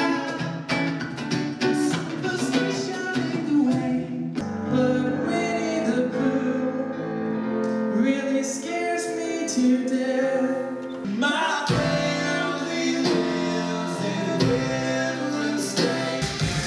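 Live songs in short excerpts cut one after another: two male voices singing with an acoustic guitar, then a man singing solo, then another piece of music. The music changes abruptly twice.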